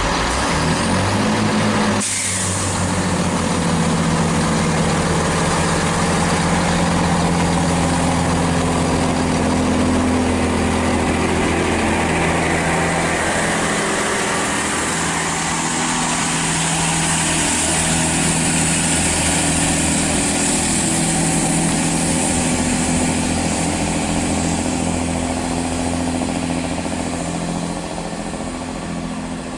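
Diesel passenger train running past on the main line: a steady engine drone with several held tones under wheel and rail noise. It gets somewhat quieter in the last couple of seconds.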